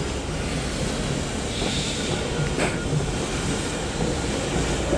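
Heritage railway carriages rolling slowly past on the rails, a steady rumble of steel wheels on track, with one sharp knock about halfway through.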